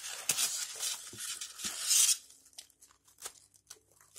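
Polystyrene foam packing blocks and chunks scraping and crunching against each other as they are lifted out of a cardboard box. The sound is densest and loudest in the first two seconds, then thins to scattered light clicks and rustles.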